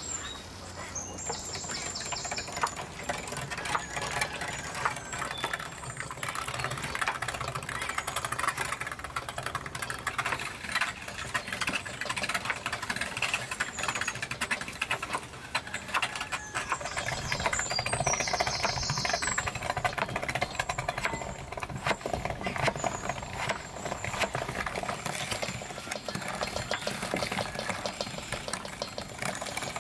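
Hand-cranked metal meat grinder being turned, pushing meat through with a continuous mechanical rattle, mixed with a knife chopping potatoes on a wooden cutting board.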